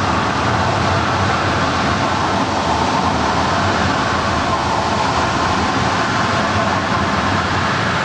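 Water from a concrete dam's outlet jetting into the stilling basin below, a steady, unbroken rush of noise.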